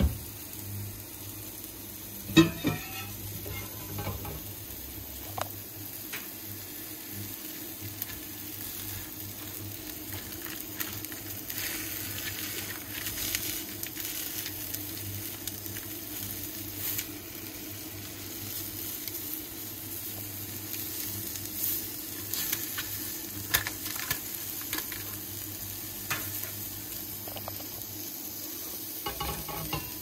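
Salmon fillets frying on parchment paper in a pan, sizzling steadily with scattered crackles and pops. A single sharp knock about two seconds in is louder than anything else.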